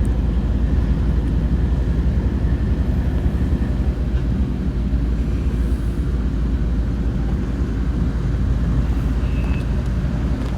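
Diesel locomotive engine running steadily with a deep, even rumble.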